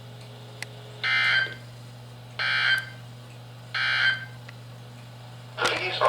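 Emergency Alert System end-of-message code from a NOAA Weather Radio broadcast: three short, buzzy digital data bursts about 1.4 s apart, marking the end of the alert, over a steady low hum. A brief burst of noise comes just before the audio cuts off at the end.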